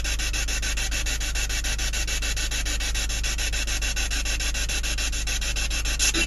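Steady hiss over a low hum, with a faint, fast, even pulsing, and one brief short sound near the end.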